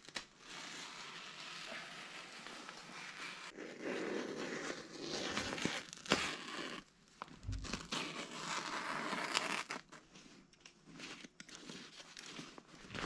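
Utility knife slicing a circle through the paper facing of fiberglass wall insulation, the paper crinkling and tearing in uneven scraping strokes. The strokes are louder in the middle stretch and fainter toward the end.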